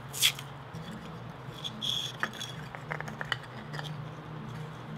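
Small plastic clicks and light knocks from a car tweeter and its plastic mounting cup being handled and fitted together, with one sharper click just after the start and a scatter of smaller clicks through the middle. A faint steady low hum runs underneath.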